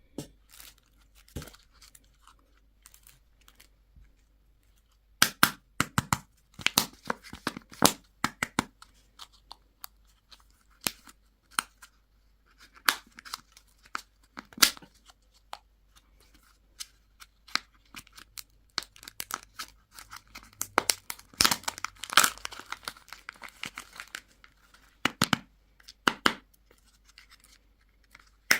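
Candy and toy packaging being torn open and crinkled by hand, in irregular bursts of sharp crackles and rustles with short pauses between them; the densest crinkling comes about three quarters of the way through.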